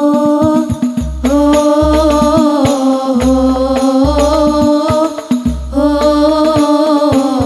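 A group of girls singing an Islamic devotional song (shalawat) together into microphones, in long held, slowly gliding notes over a bass and percussion accompaniment.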